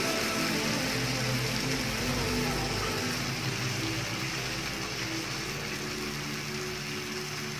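Steady sizzling hiss of onions, dried chillies and marinated chicken frying in a cast-iron skillet over a portable butane gas burner.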